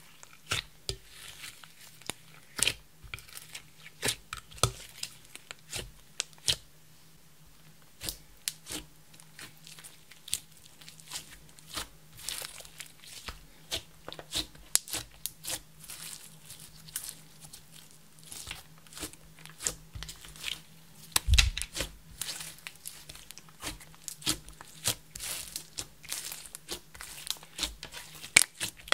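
Hands kneading, pressing and stretching a thick lump of clear slime mixed with crushed makeup and glitter: irregular sticky clicks, crackles and pops. There is a brief quiet spell about seven seconds in and a heavier thump a little past twenty seconds.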